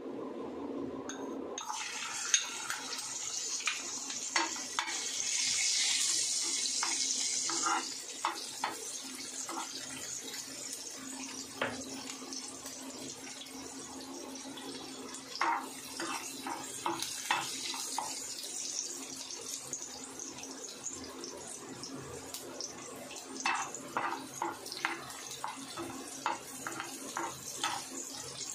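Hot oil sizzling in a frying pan as chopped ingredients go in. The sizzle is loudest from about two seconds in to about eight seconds, then settles lower, and a spatula taps and scrapes on the pan many times.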